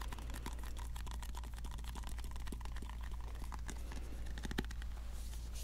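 A small cosmetic jar handled close to the microphone: a quick, uneven run of light clicks and taps from its lid.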